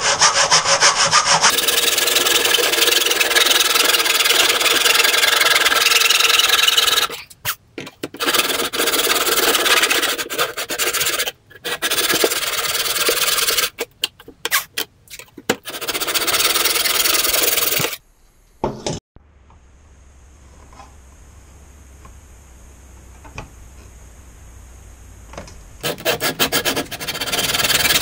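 Hand saw cutting screen-frame stock in a miter box: quick back-and-forth strokes, steady for several seconds, then stopping and starting in short runs. Past the middle the sawing stops for several seconds, leaving a faint low hum, then starts again near the end.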